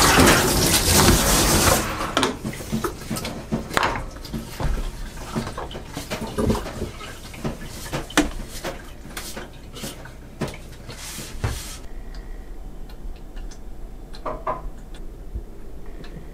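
Kitchen sink clean-up: a tap running hard for about two seconds and again briefly near eleven seconds, with scattered knocks and clatter of a wooden cutting board and dishes being handled in between. After about twelve seconds only a few light knocks remain.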